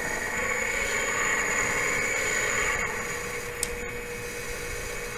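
Bridgeport mill power feed's electric motor and gears running with the lever in neutral, a steady whine whose higher part eases off about three seconds in. The unit is running before its lubricating oil has been added.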